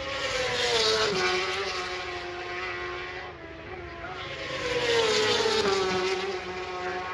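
Racing superbikes passing at speed: two pass-bys about four seconds apart, each engine note swelling in loudness and then dropping in pitch as the bike goes by.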